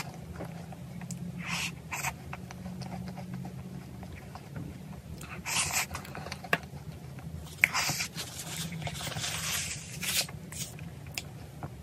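Close-miked chewing and mouth sounds of someone eating a cream-filled choux pastry, with a few short sharper crunches and smacks, over a steady low hum.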